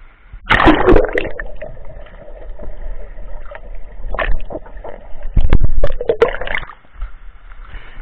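Water splashing and gurgling as a swimmer dives under with the microphone going below the surface. A loud splash comes about half a second in, followed by irregular muffled bubbling and knocks, and a louder burst of churning water about five and a half seconds in.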